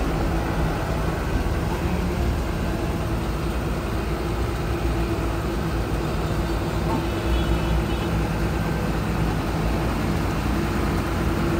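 Sakai SV700D vibratory roller's Isuzu six-cylinder diesel engine running steadily, an even low drone with a constant hum.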